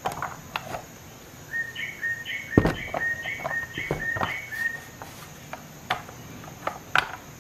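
Clicks and knocks from hands handling a plastic socket-set case and its ratchet, with one heavier knock about two and a half seconds in. Over it, a bird sings a run of about eight short two-pitch notes, roughly two a second, for about three seconds in the middle.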